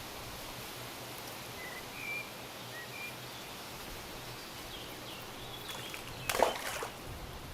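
Steady background hiss with a few short bird chirps scattered through. About six and a half seconds in, a brief loud rustling knock, as of handling or brushing against gear, cuts across everything.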